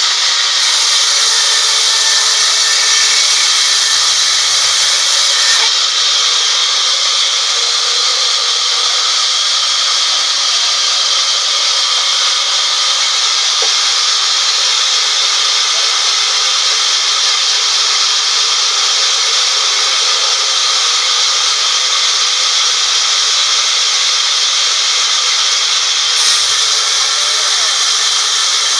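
Sawmill band saw cutting lengthwise through a teak beam: a steady, loud, high-pitched hiss of the blade running in the wood.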